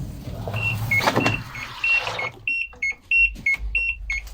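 LG washing machine's control-panel beeper sounding a repeating two-note chime of short alternating high and low beeps, a few per second, with a knock about a second in.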